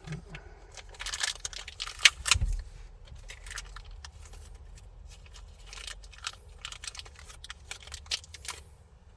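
Hands handling a car radio, its plastic fittings and wiring in a dashboard opening: scattered clicks and rustles, with a sharp knock about two seconds in.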